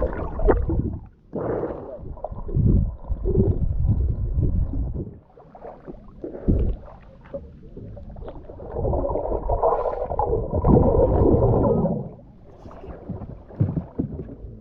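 Sea water sloshing and gurgling around a camera held at the surface as it dips under and comes up again. The gushes are irregular, and the longest runs for about three seconds near the end.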